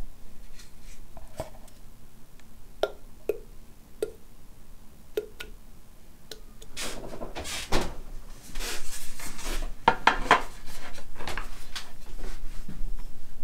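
A bowl tapping and knocking lightly against a plastic squeeze bottle, then a few seconds of scraping and rubbing as a thick tofu yolk mixture is poured and scraped into the bottle.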